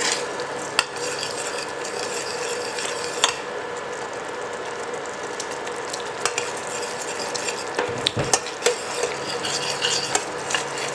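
Metal spoon stirring a sauce in a stainless steel saucepan over a steady sizzle as the sauce simmers, with a few sharp taps of the spoon against the pan, three of them close together about eight seconds in.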